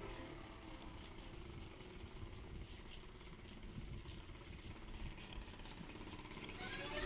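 Faint street background noise with a low, steady traffic rumble. Near the end, music begins with rising tones.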